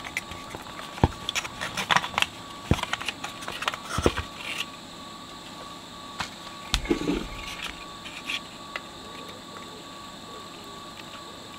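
Clicks and small knocks of a metal radio chassis and its potentiometer being handled on a workbench, most of them in the first few seconds, with one duller thump around the middle. After that only a faint steady hiss with a thin high whine.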